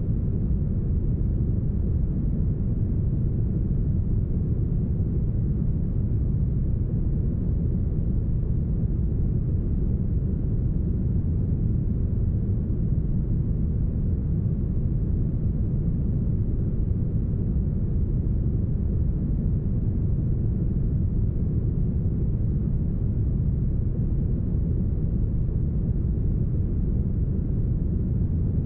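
Deep, smoothed brown noise: a steady, unchanging low rumbling hiss with no tones or events, strongest in the bass and thinning out toward the treble.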